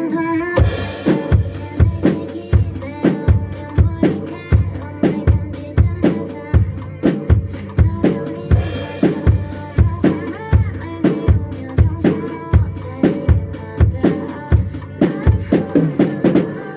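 Drum kit played along with a pop song's backing track, coming in about half a second in: a steady kick-drum pulse of about two strokes a second, with snare and rimshot hits over the music.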